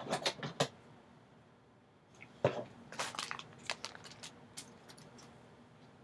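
Handling noise as items are moved and set in place: a brief cluster of light knocks and crinkles at the start, then a louder run of knocks, taps and rustles from about two and a half seconds in, lasting around two seconds.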